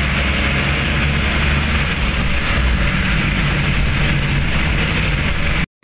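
Motorcycle engine of a sidecar tricycle running steadily on the move, heard from inside the sidecar with road and wind noise. It cuts off abruptly near the end.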